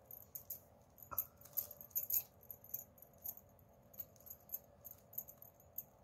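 Stiff plastic craft wire strands clicking and rustling against each other as they are threaded and pulled into a knot. The ticks are faint, quick and irregular, thickest between about one and two seconds in.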